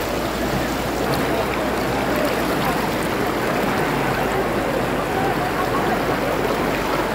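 Fast-moving floodwater rushing and churning over a road, a steady, unbroken rush of water heard close to the surface.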